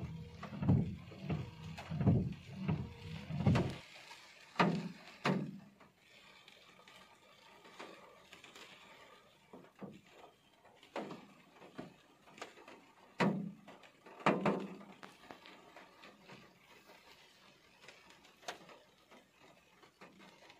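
Scattered dull knocks of heavy raindrops on a car's roof and glass, heard from inside the cabin. A low outside rumble stops about four seconds in as the side window is closed, leaving only the sparse knocks.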